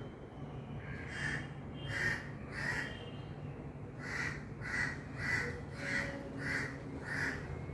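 A crow cawing: a run of short harsh calls, a little under two a second, three at first, then after a short pause six more.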